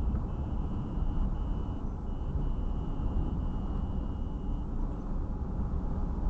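Steady rumble of engine and tyre noise heard inside a car's cabin while driving at about 55 km/h on a rural road. A faint thin high tone flickers on and off over it and stops about two-thirds of the way through.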